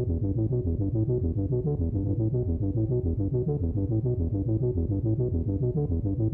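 Instrumental background music with a quick, even pulse of low, dark-toned notes.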